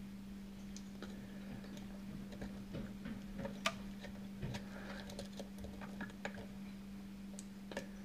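Faint, irregular clicks and ticks of a steel hook pick working the pin stack of a brass pin-tumbler cylinder lock under tension, with one sharper click a little past the middle. A steady low hum runs underneath.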